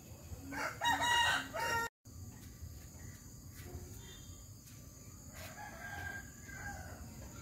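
A rooster crowing once, loud, from about half a second in until it cuts off suddenly just before two seconds. Fainter calls follow later.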